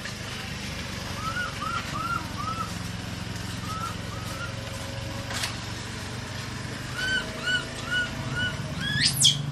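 Runs of short, high chirping calls, four or five quick notes at a time, over a steady low hum. Near the end comes one sharp call rising steeply in pitch.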